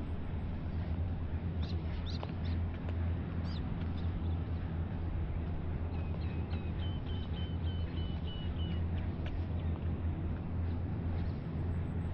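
A bird calls a quick run of about ten short, evenly spaced high notes starting about six seconds in, after a few scattered chirps earlier. A steady low hum runs under it all.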